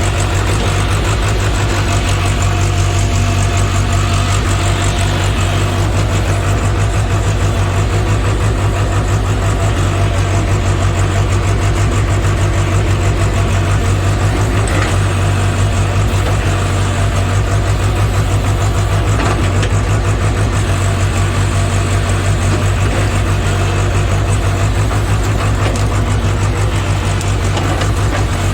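JCB JS81 excavator's diesel engine running steadily, with an even low hum that holds constant throughout.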